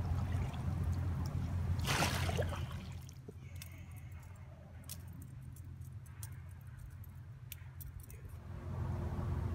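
Steady low rumble of river water and wind, with a short splash about two seconds in as a fish is brought to hand. Then it goes quieter, with scattered light clicks and rattles of gear being handled.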